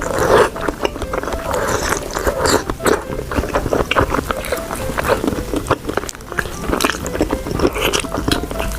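Close-up eating sounds: irregular biting and chewing of sticky noodles and glazed chicken, over soft background music.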